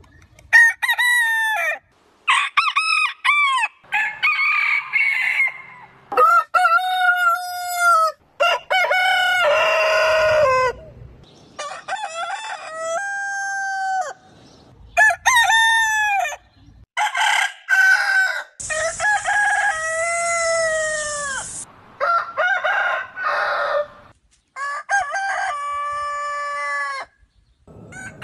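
Roosters of different breeds crowing one after another, about a dozen separate crows, each cut off abruptly and each with its own pitch and length.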